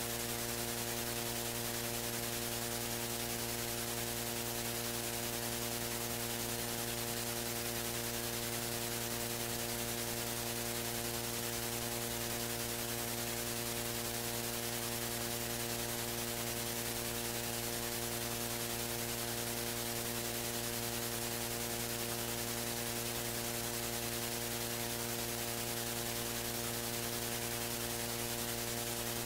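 Steady electrical mains hum with a layer of hiss, unchanging in pitch and level: a stack of even buzzing tones from the recording feed.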